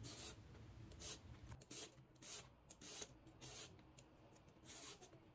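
Hand-held vegetable peeler scraping the skin off an aubergine: faint, short rasping strokes, roughly two a second.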